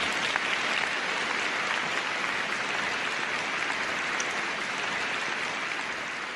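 A large audience applauding steadily, the sound of many hands clapping at once.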